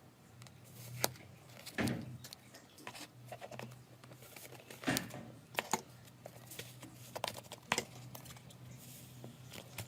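Slime being squeezed and stretched by hand: irregular sticky clicks and crackling pops, with a few louder pops about 1, 2 and 5 seconds in.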